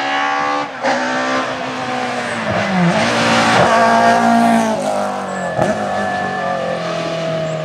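BMW E30 M3 Group A rally car's four-cylinder engine revving hard as the car accelerates past. The note climbs and drops sharply at each of several gear changes.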